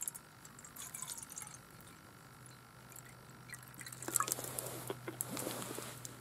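Water poured in a thin stream into a metal camping pot, trickling and splashing against the water already in it, stopping near the end.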